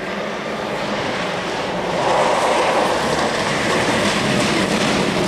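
Mitsubishi Lancer Evolution rally car's turbocharged four-cylinder engine running hard as the car approaches at speed on gravel, with the noise of the car and its tyres building into a loud, steady rush about two seconds in.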